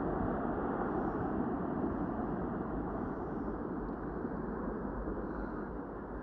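Ocean surf washing onto the beach, mixed with wind rumbling on the microphone: a steady rush that eases a little toward the end.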